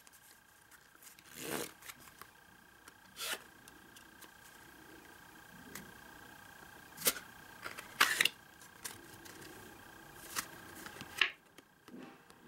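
Playing cards handled in the hands: a few short, soft card snaps and clicks, spaced a second or more apart, as the deck is gripped and cards are lifted and turned.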